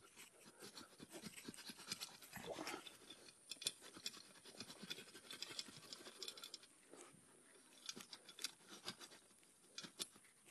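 Faint, irregular scratching and crunching of hands working dry dirt and crushed clods around a dog trap to bed it in firmly.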